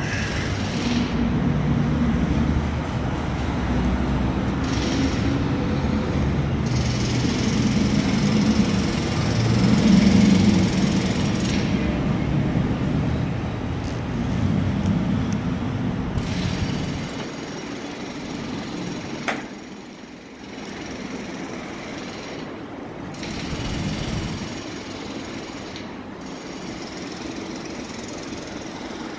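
Rumble and clatter of a subway train on the steel elevated structure, loud for about the first half, then dropping to a quieter distant rumble with a single sharp click.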